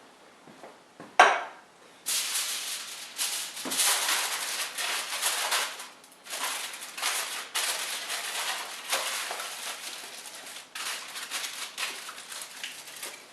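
A sharp knock, then about eleven seconds of dense crackling, rustling noise that stops and starts a few times, from kitchen handling.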